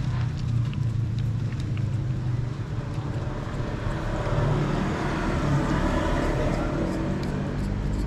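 Street traffic: a vehicle engine hums steadily, and road noise swells about halfway through as traffic passes, then eases off near the end.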